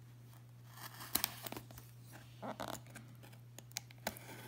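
Knife blade slitting the tape on a cardboard shipping box: a few short scratchy scrapes and ticks as the blade cuts and the cardboard is handled, over a low steady hum.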